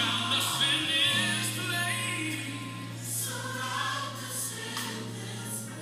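Gospel song with a choir singing over a held low bass note.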